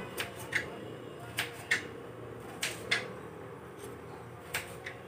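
Kitchen knife chopping a peeled bottle gourd (lauki) into chunks on a chopping board: sharp knocks of the blade hitting the board, coming in four pairs.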